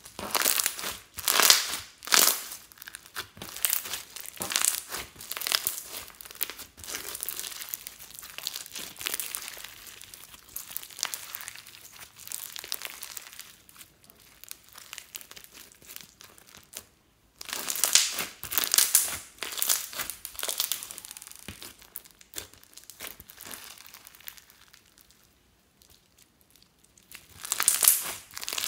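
Hands squeezing and kneading glossy slime mixed with clay and glitter, giving a run of sticky crackles and pops. It is loudest near the start, again about two-thirds of the way in and near the end, with quieter spells between.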